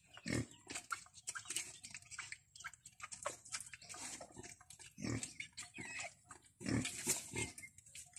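A sow and her newborn black piglets grunting, with short high squeaks mixed in: an irregular run of short grunts, the loudest low ones coming in the second half.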